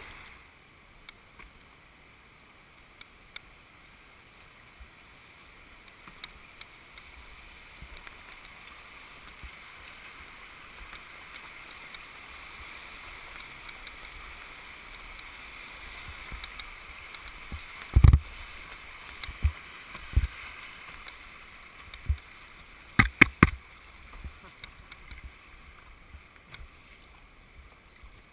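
Rushing whitewater of a shallow river rapid heard from a canoe, growing louder toward the middle. In the second half come several low thumps and sharp knocks, the loudest about two-thirds of the way in and a quick cluster a few seconds later.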